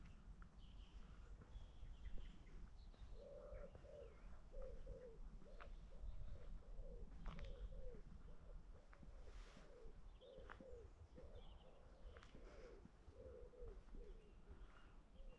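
Faint bird calls outdoors: a run of short, low cooing notes about twice a second starts about three seconds in, with higher chirps from small birds now and then.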